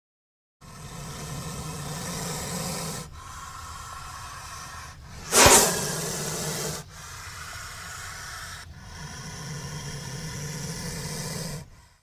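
Indian cobra hissing: a series of long, breathy hisses, some louder than others, with one sudden, loudest burst about five and a half seconds in.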